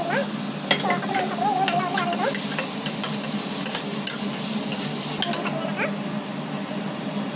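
Onions and tomatoes sizzling in oil in an aluminium pressure cooker, stirred with a perforated steel ladle that clicks and scrapes against the pan now and then over the steady sizzle.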